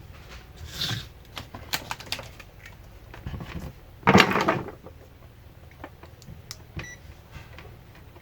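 Scattered small clicks and knocks from tools and battery cells being handled on a workbench, with one louder rustle or scrape about four seconds in.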